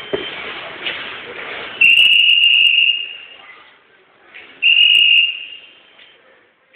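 Two loud blasts on a traffic policeman's whistle: a longer blast about two seconds in, then a shorter one a couple of seconds later.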